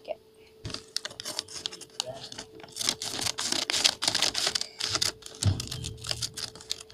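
Scissors snipping through a brown paper bag, with many quick cuts and the paper crinkling and rustling as it is handled.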